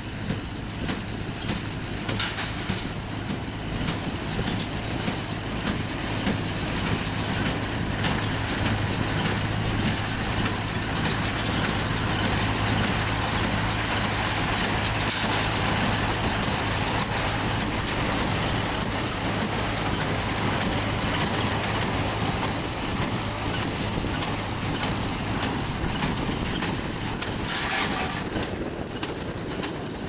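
Engine on the horse-drawn forecart running steadily to drive a Case International inline small-square baler, with a constant low hum and the baler's mechanical clatter over it.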